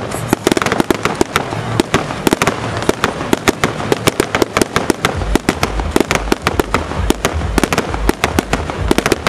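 Fireworks going off in a dense, unbroken run of sharp pops and crackles, several a second. A low rumble joins in about halfway through.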